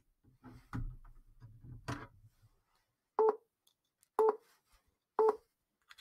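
Countdown timer beeping its final seconds: three short electronic beeps, one a second, each with a steady pitch. Before them come a faint low rumble and a few soft clicks.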